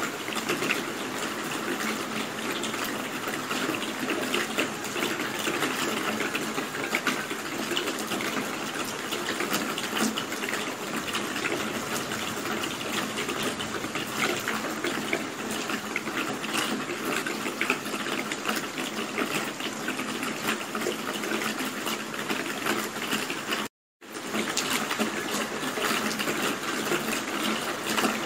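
Steady rain falling, a dense even hiss of many small drops, which cuts out for a split second about three-quarters of the way through.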